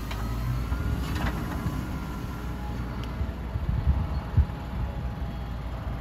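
Fendt 720 Vario tractor's diesel engine running under way with a steady low rumble and a faint high whine. A few short clunks come from the raised reversible plough, one about a second in and another past the middle.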